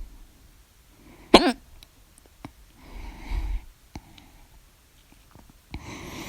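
A woman's single loud, voiced hiccup about a second in, then breathing in and out twice, with a few faint clicks.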